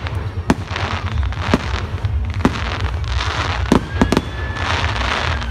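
Aerial fireworks bursting: sharp bangs roughly once a second, three in quick succession a little before the end, with hissing crackle from glittering star bursts between them.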